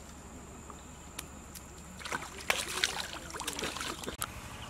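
Stream water splashing as a person scoops it up with cupped hands and splashes it onto the face, a run of uneven splashes starting about two seconds in.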